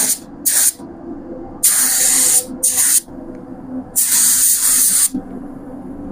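Pneumatic paint spray gun spraying filler primer in five short bursts of hissing air as the trigger is pulled and released, the longest lasting about a second near the end, over a steady low hum.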